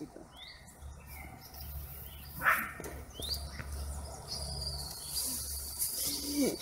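Birds chirping: a few short, high, rising chirps and a thin held whistle over a low rumble, with one louder brief call about two and a half seconds in.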